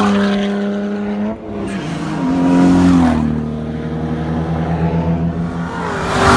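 Sports-car engines accelerating down a race-track straight, the pitch climbing and then dropping at each gear change. Near the end a red C7 Chevrolet Corvette's V8 passes close by in a loud rush of engine and tyre noise.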